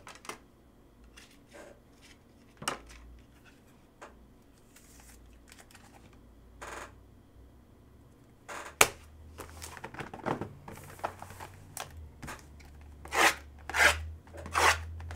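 Hands handling a trading card in a rigid plastic holder and then a cardboard card box: scattered light clicks and taps, one sharp plastic click about nine seconds in, then a busier run of rustling and knocking near the end.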